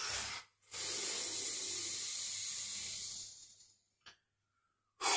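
A person breathing out heavily and audibly: recovery breaths after releasing an isometric hip contraction. One long breath fades out about three and a half seconds in, followed by a short click.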